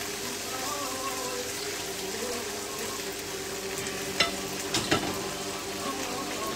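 Linguine cooking in lobster broth and pieces of lobster and crab in a frying pan give a steady sizzling and bubbling. Three sharp clicks come between about four and five seconds in.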